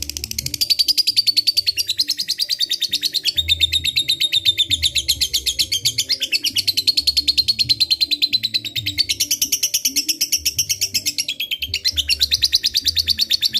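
Lovebird singing its long chattering 'ngekek' trill: a very fast, high-pitched run of sharp chirps, about ten a second, in long phrases broken by brief pauses.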